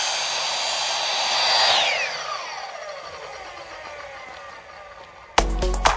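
Ryobi miter saw running at full speed through aluminum angle stock. After about two seconds the trigger is let go and the motor's high whine falls as the blade spins down and fades. Music comes in near the end.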